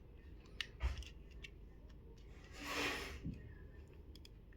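A Nokia N70's plastic front cover being pried off its frame: a few small plastic clicks and a short scrape about three seconds in.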